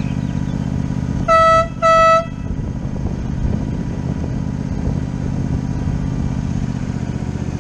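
Two short toots of a single steady note from a miniature train's whistle, the loudest sounds, a little over a second in, over a steady low rumble. Two short blasts is the usual railroad signal that a train is about to move off.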